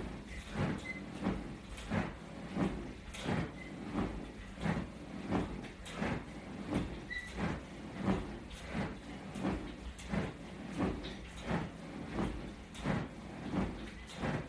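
A person doing crunches on an exercise mat: short swishing strokes at a steady pace, about three every two seconds, two to each crunch.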